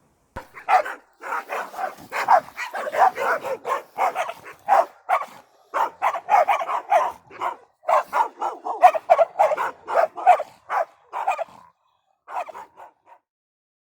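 Dog barking over and over in quick succession, with a short pause near the end before a few last barks.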